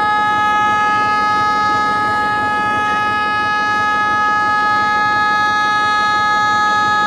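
WDM-3A diesel locomotive's air horn held in one long, steady blast, a chord of three tones sounding without a break, over a low rumble.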